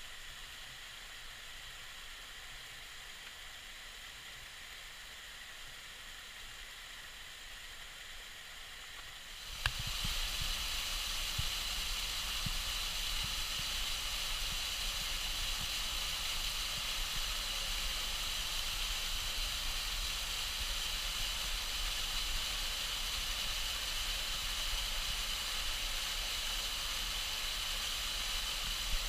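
Waterfall rushing: a steady hiss of falling water. After a brief click about ten seconds in it becomes clearly louder and stays that way.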